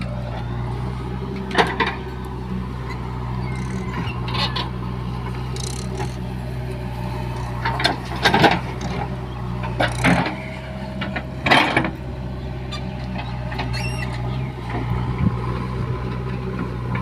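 JCB 3DX backhoe loader's diesel engine running steadily under load as the backhoe digs and dumps soil. There are several sharp clanks and knocks from the bucket and boom, the loudest about a third of the way in and twice more past the middle.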